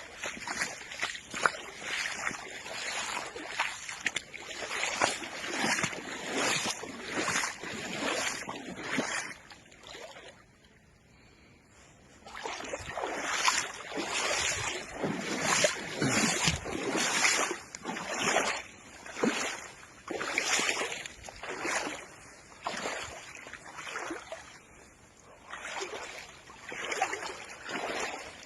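Water splashing in a steady rhythm, about one or two splashes a second, with a pause of about two seconds near the middle.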